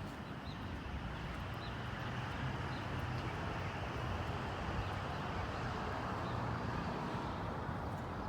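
Steady outdoor background rumble and hiss, with faint short bird chirps.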